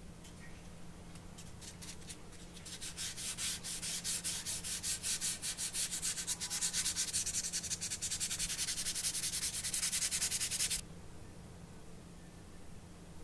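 Sandpaper rubbed quickly back and forth over a small primed plastic model part: a few light strokes, then a fast, even run of scratchy strokes, several a second, that stops abruptly near the end. It is the primer coat being smoothed before the undercoat goes on.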